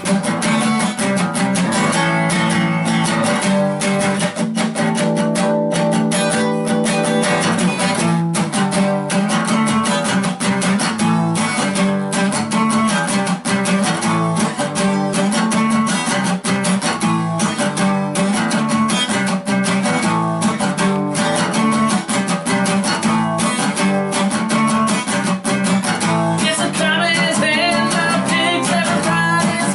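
Steel-string acoustic guitar strummed hard and fast in a steady, driving rhythm of full chords.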